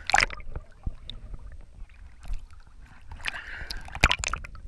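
Lake water splashing and sloshing around a camera held at the surface by a swimmer, the microphone dipping in and out of the water. The loudest splashes come just after the start and again about three to four seconds in.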